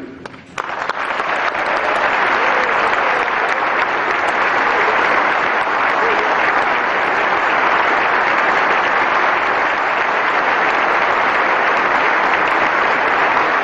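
Audience applauding in a large hall, swelling over the first second or two and then holding steady.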